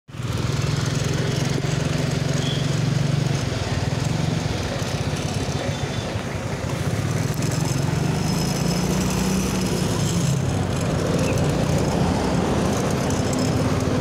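Vehicle engines running close by in road traffic, a steady low rumble.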